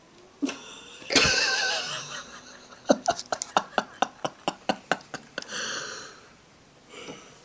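A person laughing: a loud first outburst, then a quick run of about a dozen short laugh pulses, then a breath drawn in.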